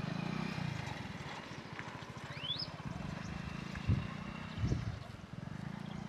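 A motor running steadily with a low, pulsing hum underneath. A small bird gives one quick rising whistle about two and a half seconds in, and there are two dull thumps around the middle.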